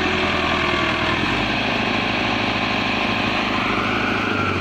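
Massey Ferguson 385 tractor's diesel engine running steadily under load as the tractor, bogged down in mud, tries to drive out, with a brief rise in pitch about three and a half seconds in.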